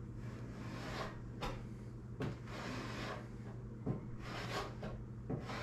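A hand paint scraper is pushed across stripper-softened paint on a truck door, making several short scraping strokes with a longer scrape in the middle. A steady low hum sits underneath.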